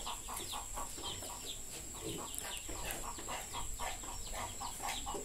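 Chickens clucking in a steady quick run, about four to five clucks a second, with higher, thin falling chirps mixed in.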